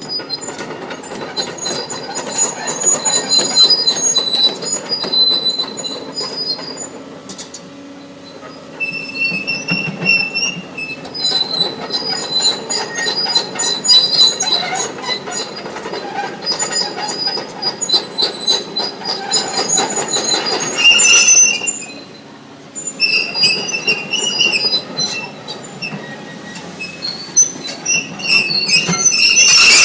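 Doosan DX300 crawler excavator working, with steady metallic clanking and shrill squealing of steel parts. The sound drops off briefly about two-thirds of the way through, then picks up again.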